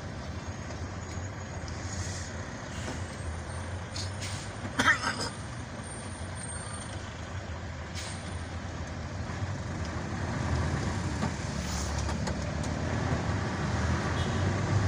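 Low engine rumble and road noise heard from inside a truck cab moving slowly in traffic, with a brief loud burst about five seconds in. The engine grows louder over the last few seconds.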